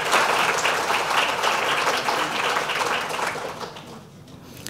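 Audience applauding, a dense patter of many hands clapping that fades out after about three and a half seconds.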